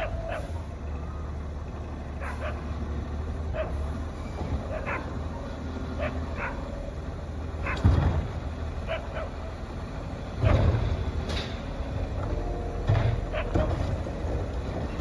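Mack LEU CNG garbage truck's natural-gas engine running with a steady low rumble as the truck approaches. Short sharp sounds come every second or so, and there are two louder bursts about eight and ten and a half seconds in.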